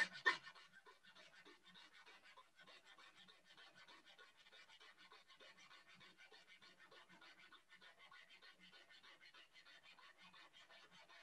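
Coping saw with a fine-toothed blade, 15 or 18 teeth per inch, back-cutting the coped end of a piece of crown moulding in quick, even back-and-forth strokes. The strokes are faint, with a couple of louder ones right at the start.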